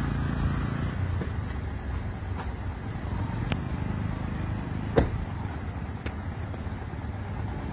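Motor vehicle engine running, a steady low rumble, with a sharp click about five seconds in.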